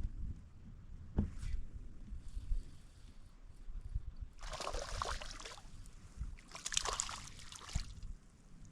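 Water splashing in two short bursts about four and a half and six and a half seconds in, from a hooked crappie thrashing at the surface as it is reeled in, over a low rumble with a few knocks.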